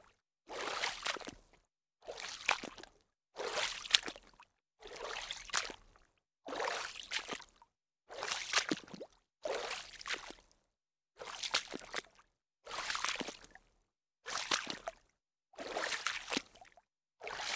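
Water splashing in a regular series of separate splashes, about one every second and a half. Each splash lasts roughly a second, with short silent gaps between them.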